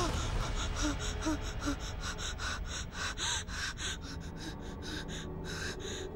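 A frightened woman panting and gasping, with quick, heavy breaths about three or four a second.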